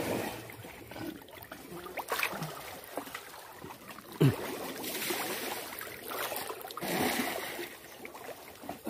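Water sloshing and splashing as people move through shallow water catching fish by hand, in swelling washes, with one sharp thump about four seconds in.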